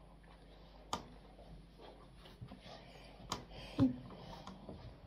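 Quiet room tone with a few scattered sharp clicks, about a second in and twice more past three seconds, the last with a short low knock.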